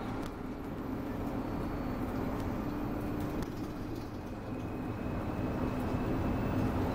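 Alexander Dennis Enviro200 MMC single-deck bus on the move, heard from inside the cabin: steady engine and road noise with a constant low hum.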